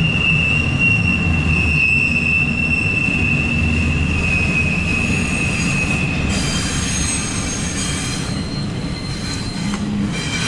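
CSX double-stack intermodal freight train rolling past, its wheels rumbling steadily on the rails. A high, steady wheel squeal rings over the rumble and stops about six seconds in, leaving fainter high squeals.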